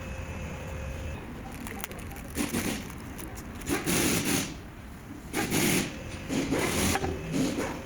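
Hand-tool work on suspension parts: a series of about five rough scraping strokes, each under a second long, with a few sharp clicks between them.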